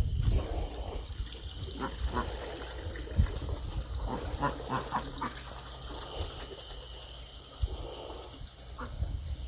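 Faint scattered goat sounds close by, over a steady high insect chirring and a low rumble.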